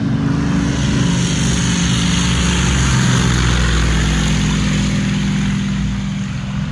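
Light aircraft's propeller engine running at high power, loudest about halfway through and easing off a little near the end.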